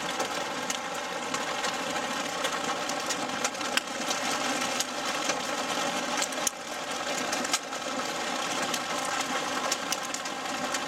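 Heavy rain pelting a vehicle's roof and glass over the steady hum of its idling engine, with a few sharp clicks of small hailstones striking the body.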